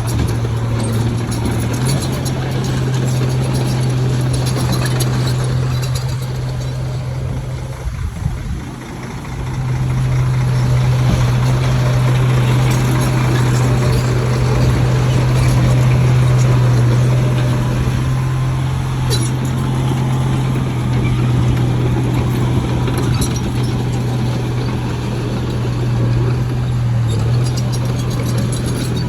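Heavy diesel earthmoving machinery running with a steady low engine hum. The engine sound dips briefly about eight seconds in, then picks up again and holds.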